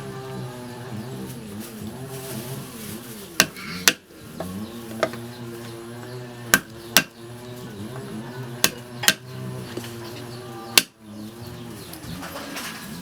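Sharp knife or cleaver strikes on a chopping board, mostly in pairs about half a second apart, seven strikes in all. A continuous wavering pitched sound runs underneath.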